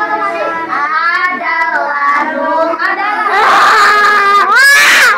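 A group of girls singing together to a strummed small acoustic guitar. About three seconds in, the singing turns into louder, rougher voices, ending in a loud high-pitched shout.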